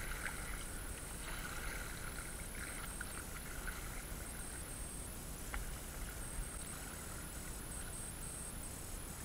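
Steady water ambience around a stand-up paddleboard on a calm lake: water moving against the board and paddles, with a few light knocks.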